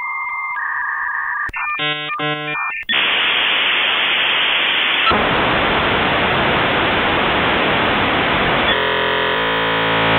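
Electronic logo sound effect: two steady beeping tones, then a pair of quick buzzy blips, then a loud static-like hiss from about three seconds in. It ends with a harsh buzzing tone for the last second or so.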